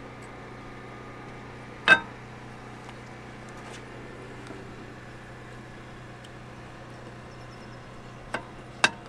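New brake pads being slid into a Land Rover front brake caliper bracket, metal on metal: one sharp, ringing clack about two seconds in and two quieter clicks near the end, over a steady low hum.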